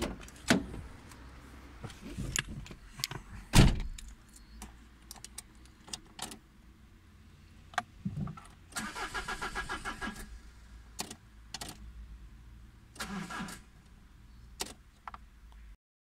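Car door clicks open and slams shut about three and a half seconds in; then the Peugeot 306 2.0 HDI diesel is cranked by its starter in two short bursts, the second shorter, and does not fire. It is a no-start traced to the ECU, with a coded anti-start (immobiliser) fault stored.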